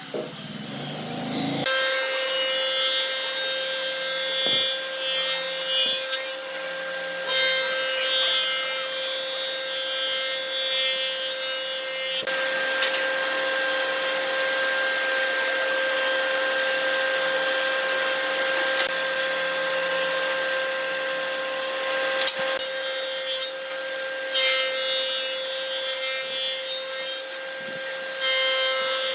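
Electric power tool working wood: a steady motor whine over the hiss of the cutting or sanding, which drops out briefly twice.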